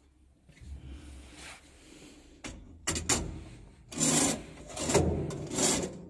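A loose metal cover plate is handled and slid across a sheet-metal panel, making a few short scraping rubs. The loudest come about four and five seconds in.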